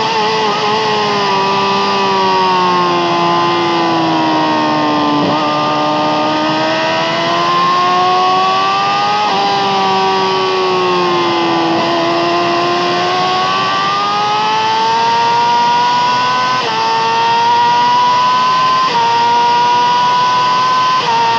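Yamaha R6's inline-four 600 cc engine through an Akrapovic exhaust, heard onboard at track speed: revs fall away into a corner, climb out, fall again and climb, with quick gear changes breaking the pitch several times. A steady rush of wind runs underneath.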